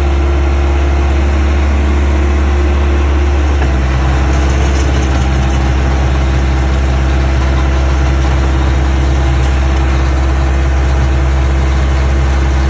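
Caterpillar 931 track loader's diesel engine running steadily as the machine works; its note changes a little under four seconds in.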